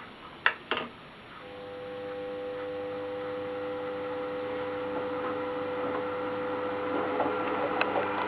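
Two sharp clicks, then the Chester Champion 20 mill-drill's variable-speed motor and V-belt spindle drive start up, the hum swelling over about a second and then running steadily, with a couple of light ticks near the end.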